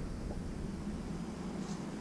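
Low, steady background noise of a quiet garage with no distinct tool sounds: a pause between wrench strokes.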